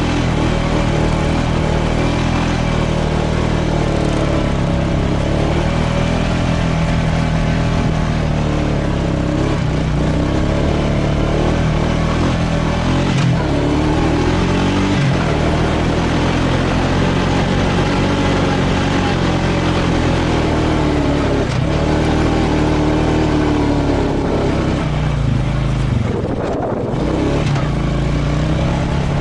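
Off-road vehicle engine running hard across sand, its pitch rising and falling with the throttle, easing off briefly near the end.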